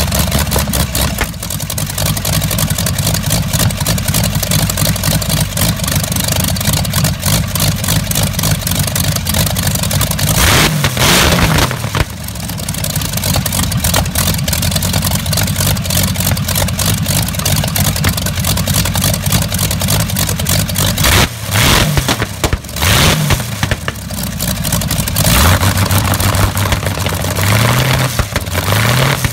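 Seven-cylinder Jacobs radial aircraft engine with Commodore fuel injection running with a rapid stream of firing pulses. The throttle is blipped a few times: the revs rise and fall briefly about eleven seconds in and again around twenty-two seconds, then climb and fall once more near the end.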